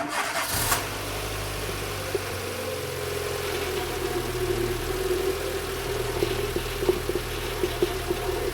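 A Dacia's engine starting with a short burst of noise at the very beginning, then idling steadily with a steady whine over it.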